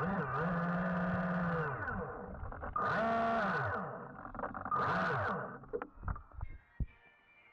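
RC submarine's electric drive motor whining underwater, its pitch rising and falling in several surges, with louder hissing bursts about three and five seconds in. It winds down and stops about six seconds in, leaving a few faint clicks.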